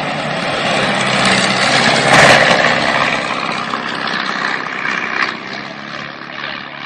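Shark Aero light sport aircraft's Rotax flat-four engine and propeller flying past low, loudest about two seconds in and then fading as it moves away.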